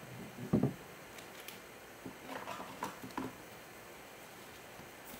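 Handling noise of a trading card in a clear plastic sleeve, worked by gloved hands: a soft dull thump about half a second in, then light rustles and small clicks between about two and three seconds.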